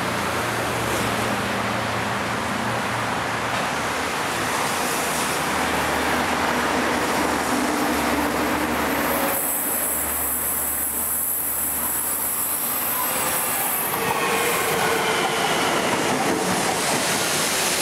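CPTM electric commuter train running into the station with a steady rumble of wheels on rail. About halfway through, a high-pitched wheel squeal sets in for several seconds. Near the end a whining tone follows.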